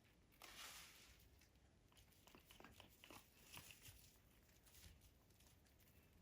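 Near silence, broken by a faint rustle about half a second in and a scattering of faint clicks and scratches: a blue-and-gold macaw shifting about on her net.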